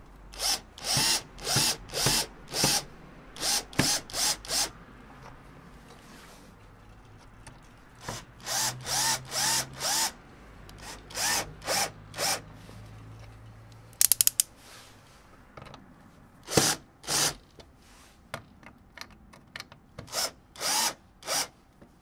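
Cordless drill-driver turning the small screws of a car's turn-signal lens in short trigger bursts, each whir rising and falling in pitch, in groups of two to five with pauses between. A brief fast rattle of clicks comes about two thirds of the way through.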